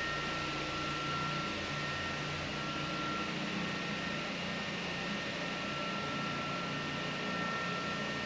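A steady machine hum with a low drone and two faint, thin whistling tones held throughout.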